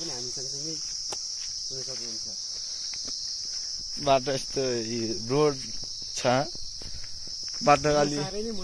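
Steady high-pitched chorus of insects, crickets or similar, running unbroken; from about four seconds in a man's voice cuts in several times in short bursts, louder than the insects.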